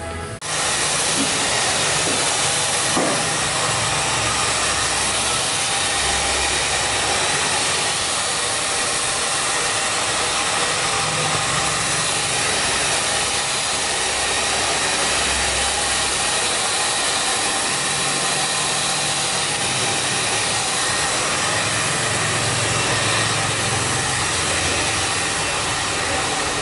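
Handheld hair dryer blowing steadily, starting suddenly about half a second in, with a low rumble of airflow that swells and fades as it is moved about the head.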